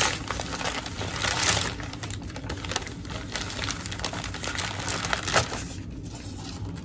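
Packing paper and plastic wrapping crinkling and rustling as they are handled, in irregular bursts, with one sharp louder crackle about five seconds in.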